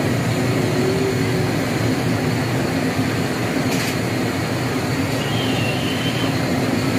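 Batter-coated fish pieces deep-frying in a large karahi of hot oil: a steady, dense sizzle.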